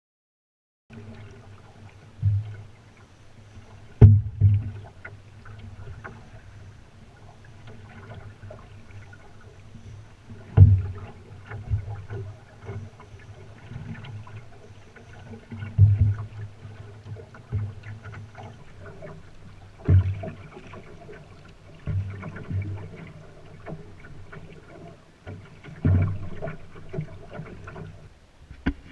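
Solo canoe being paddled: low hollow knocks and thumps against the hull every few seconds, over a faint steady wash of water.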